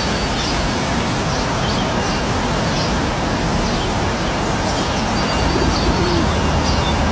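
Waterfall rushing steadily, with birds chirping faintly over the water and a few low calls near the end.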